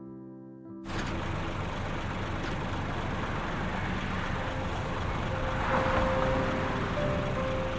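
Piano music cuts off abruptly just under a second in, giving way to the steady running of a Claas Lexion combine harvester at work in wheat, with a faint steady whine in it from about halfway.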